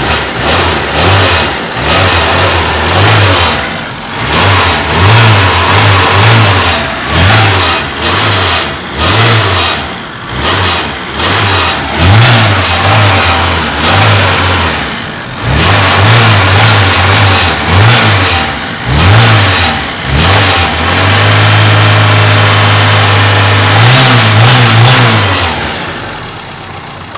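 A cold 1991 Fiat Uno 1.3's four-cylinder engine revved again and again in short throttle blips, about one a second, then held at higher revs for a few seconds and let back down to idle near the end. The revving keeps the cold engine from stalling, and while it is revved the rattle from the gearbox, which it makes only when cold, goes quiet.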